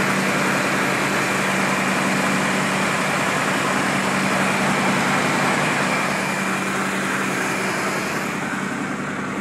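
Cadillac 4.5-litre V8 idling with the hood open, a steady, even running noise with a constant low hum, easing slightly near the end.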